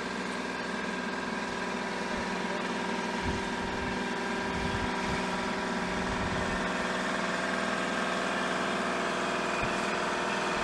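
Kubota compact tractor's diesel engine running steadily at low speed, growing slightly louder as the tractor creeps closer, with a few dull low knocks a few seconds in.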